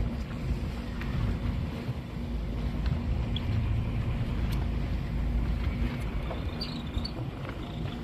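Fishing boat under way: its engine gives a steady low rumble with a constant hum, mixed with wind and water rushing past the hull.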